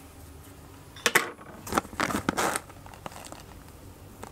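Plastic bag of Tropica Aquarium Soil crinkling and rustling as it is handled, in a few short bursts about a second in and again around two seconds in.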